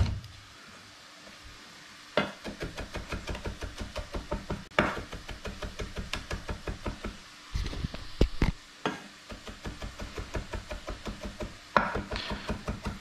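Chef's knife rapidly mincing smashed garlic on a wooden cutting board: quick, even knocks of the blade on the board, about six a second, starting about two seconds in, with a few harder strikes among them.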